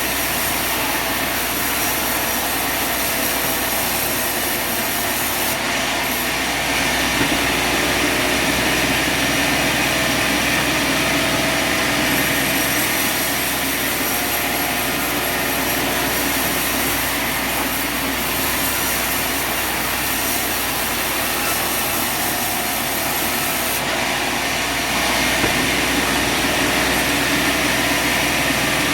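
Sawmill running steadily with its saw cutting through a log. The blade noise swells a few seconds in and again near the end.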